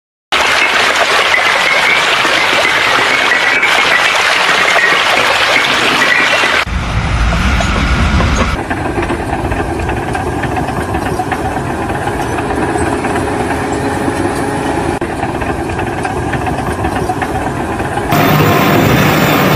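Steady machinery and engine noise, changing abruptly in character three times: a hissing noise first, then a deeper running engine sound, then a steadier hum, then a louder sound near the end.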